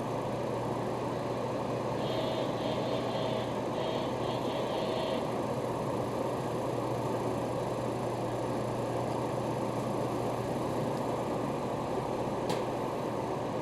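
Steady hum and rush inside a halted electric commuter train car, waiting after an emergency stop. A faint intermittent tone pattern sounds from about two to five seconds in, and there is a single sharp click near the end.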